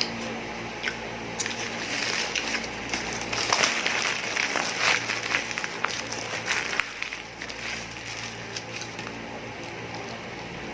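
Crackly slurping and sucking with many small clicks, as milk tea is drunk through a straw near the bottom of the cup. It is busiest in the middle few seconds, over a steady low hum.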